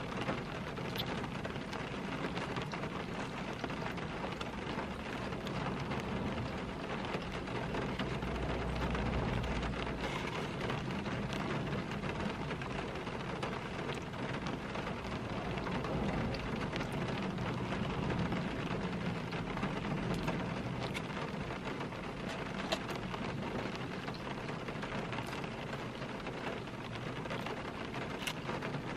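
Steady rain falling on a car's roof and windows, heard from inside the cabin, with a few light ticks scattered through it.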